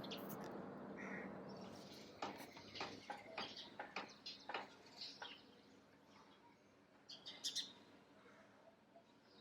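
Small birds chirping in short, sharp high notes: a quick run of them from about two to five seconds in and another brief burst about seven seconds in. A steady rushing noise fades away over the first couple of seconds.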